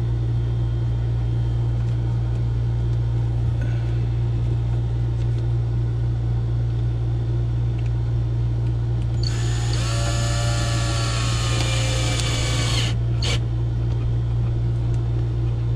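Cordless drill driving a screw into wooden paneling: a whine that climbs in pitch as the motor spins up and runs for about three and a half seconds, then a brief second burst. A steady low hum runs underneath.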